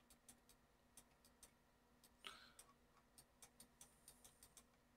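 Near silence with faint, irregular clicks of a computer mouse as a 3D model is navigated on screen.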